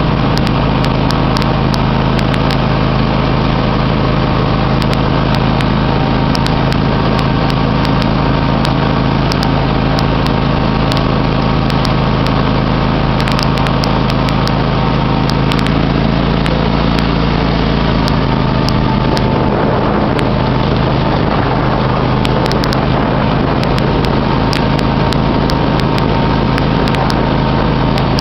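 John Deere X500 Multi-Terrain riding mower's 25-horsepower engine running steadily as the mower drives along, heard from the driver's seat, with an even, unchanging hum.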